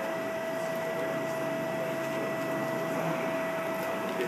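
Steady mechanical hum with a constant whine at two fixed pitches, unchanging throughout.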